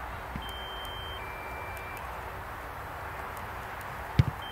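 An electronic two-tone beep, a higher tone stepping down to a lower one, lasting about a second and a half, over a steady hiss. Near the end come two sharp thuds of a football being struck, the first one loud.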